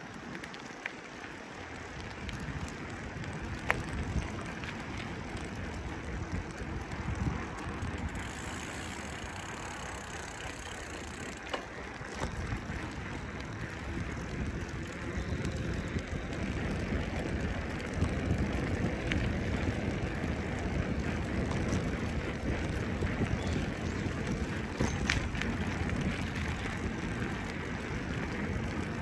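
Bicycle riding: tyres rolling over the path and the bike rattling, under a low rumble that grows heavier about twelve seconds in, with a couple of sharp clicks.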